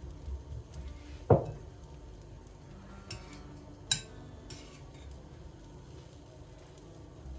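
Kitchen dishes and utensils being handled: a dull knock with a short ring about a second in, then a sharp clink near the middle, with a few light ticks between.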